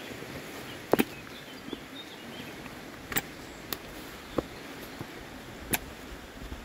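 A hiker walking on a wet, rocky trail: sharp irregular taps, about one a second, as he steps on stone. A steady low hiss runs underneath.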